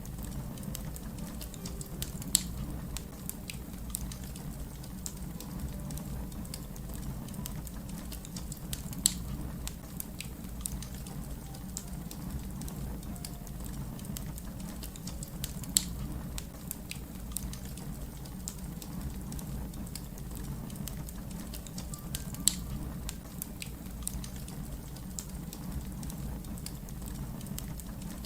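Wood fire burning with a steady low rumble, dense small crackles and a few louder pops several seconds apart.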